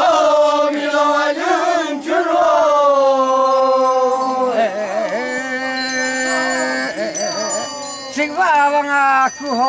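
A group of Ollo Naga men chanting a traditional festival song together, holding long drawn-out notes that waver at their start, with a short break for breath near the end.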